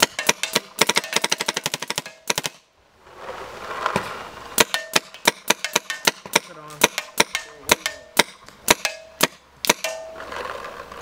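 Planet Eclipse Geo 3 paintball marker firing: rapid strings of shots, a brief pause about a quarter of the way in, then more shots at a slower, uneven pace. This is an efficiency test, shooting down the air tank to count the shots per fill.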